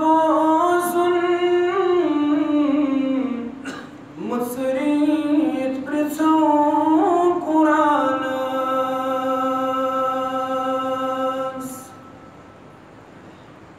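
A man chanting a devotional nazm unaccompanied, drawing out long, slowly bending notes. There is an upward glide about four seconds in and a long steady held note later, after which the voice stops about a second before the end.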